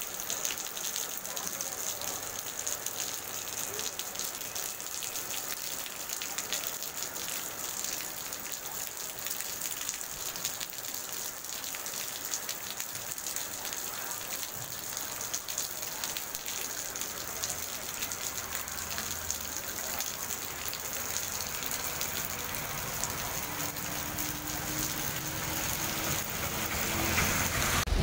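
Steady rain falling on a wet paved street, a constant hiss with close drops pattering.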